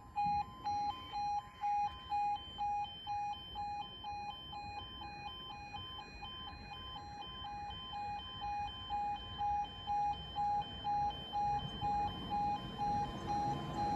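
Level crossing warning alarm beeping at a steady pitch, about two and a half beeps a second, with the barriers down. Near the end the rumble of an approaching tram starts to rise under it.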